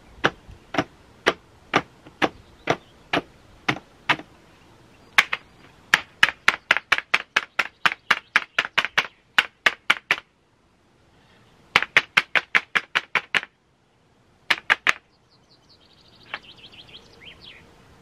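The flat pleated filter of a Kärcher AD 4 Premium ash vacuum is knocked sharply again and again against the container rim and the concrete floor to shake the ash out of it. The knocks come about two a second at first, then quicken to about four or five a second, then break off into two short bursts near the end.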